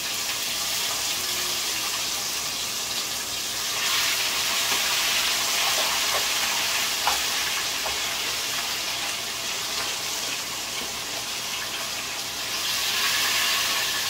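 Flour-coated fish frying in hot oil in a frying pan: a steady loud sizzle that swells about four seconds in and again near the end, with one light tap about seven seconds in. The spitting comes from the seasoning and the water in the fish.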